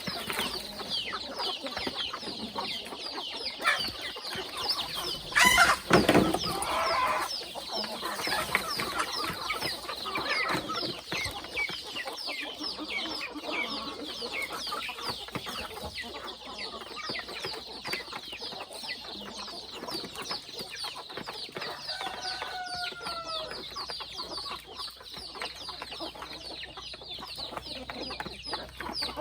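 A flock of free-range chickens clucking and calling, with a constant chatter of short high cheeps and a loud call about six seconds in.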